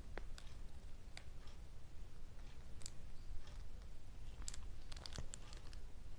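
Faint, scattered clicks and light rustling from hands handling a plastic fashion doll and its small eraser accessories, at irregular moments over a low steady hum.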